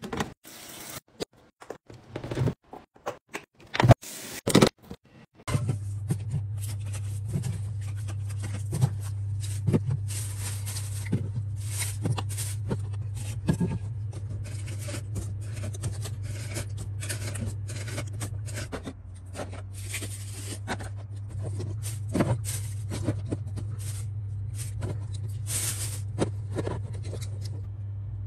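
Handling sounds of fridge restocking: a string of clicks, knocks and scrapes as containers and packaging are picked up and set down. A steady low hum comes in about five seconds in.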